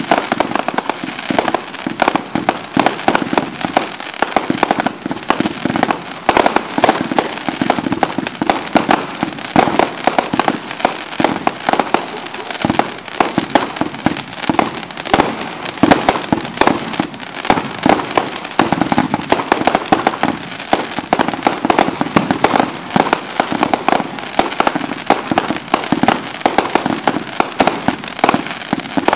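Consumer fireworks finale: many cakes and reloadable aerial shells going off at once, a dense, unbroken barrage of bangs and bursts with no let-up.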